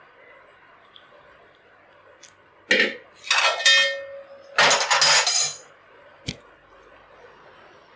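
Steel kitchen pot and utensils clanking in two loud bursts of clattering, one clank leaving a brief metallic ring, then a single sharp click.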